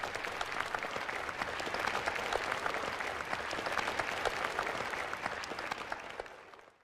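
A crowd of schoolchildren applauding, a dense patter of clapping hands that fades out near the end.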